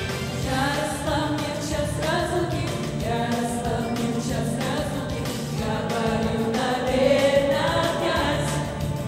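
Female vocal group singing a pop song live into microphones over accompaniment with a steady beat.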